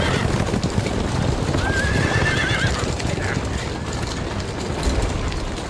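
A horse whinnies once, about two seconds in, over the clatter of horses' hooves and a heavy low rumble of storm wind.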